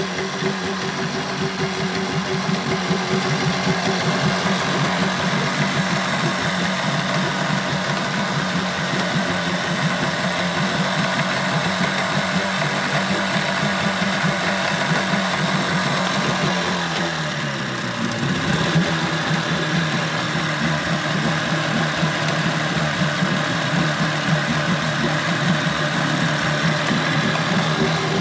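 Mercury two-stroke outboard motor running steadily in a water test barrel. About 17 seconds in its speed briefly sags, then picks back up.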